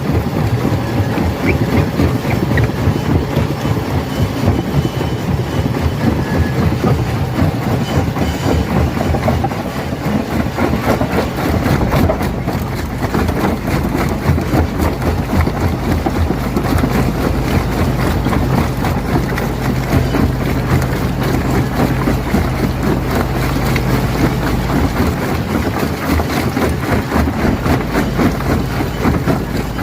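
Rock crusher running under load: a dense, continuous clatter of stone being broken, over the steady low drone of the machine.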